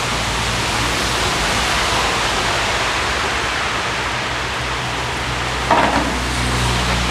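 Steady rushing noise with a low hum beneath it, and a brief short sound about six seconds in.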